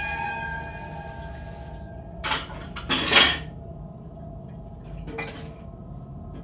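A sustained, dark film-score drone fading out. Over it come three short, harsh metallic scrape-like hits: the first a little over two seconds in, the loudest about a second later, and a fainter one near the five-second mark.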